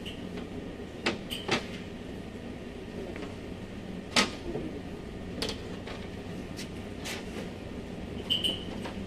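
Scattered clicks and knocks of gloved hands and parts working inside a stripped car door and its window mechanism, the loudest a sharp knock about four seconds in, with a few short high squeaks, over a steady low hum.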